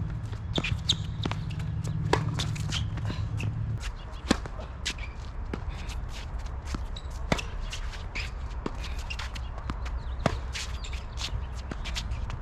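Tennis players' shoes scuffing and stepping on the court, with sharp ball impacts every few seconds. A low hum runs under it for about the first four seconds, then stops.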